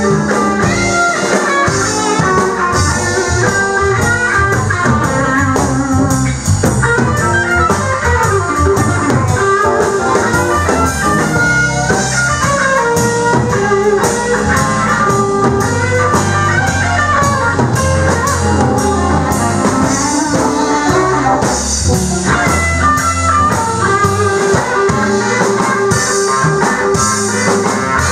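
Live blues band playing an instrumental section: electric guitar over a drum kit keeping a steady beat, with no singing.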